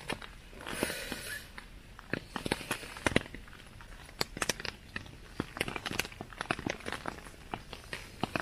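Rustling of nylon tent and sleeping-bag fabric as a person shifts about, a short burst of rustle about a second in, with scattered sharp ticks and taps throughout.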